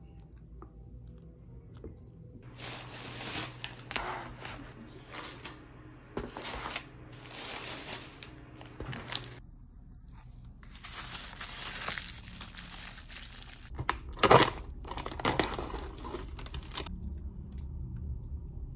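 Plastic food packaging crinkling and tearing as it is opened and handled, in repeated bursts, with one sharp crack about fourteen seconds in.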